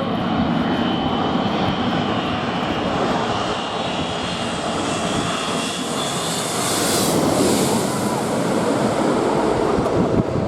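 Airliner passing close by, its engines giving a loud, steady noise with a faint falling whine; the high-pitched hiss builds to a peak about seven seconds in and then eases.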